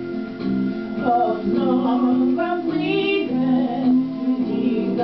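Music: a slow waltz played on an electronic keyboard, with sustained chords and a melody, and a woman's singing voice over it.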